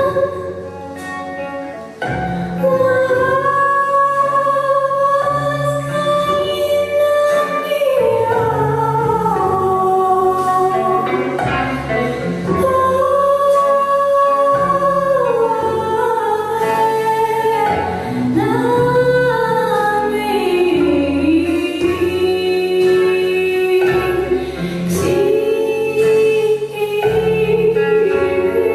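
A jazz song performed with a singing voice holding long, sliding melody notes over band accompaniment with a steady bass line.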